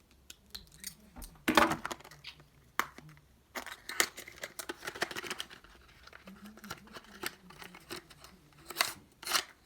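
Packaging being torn and crinkled open by hand, with scattered sharp clicks and rustles.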